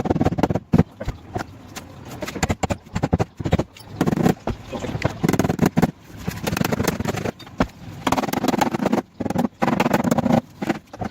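Many sharp, irregular taps and knocks on car body metal, typical of dent-repair tools working a panel, with men's voices in between.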